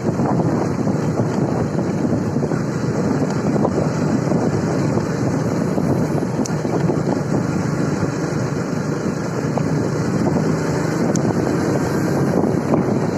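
Steady wind rush buffeting the microphone, its loudness wavering unevenly.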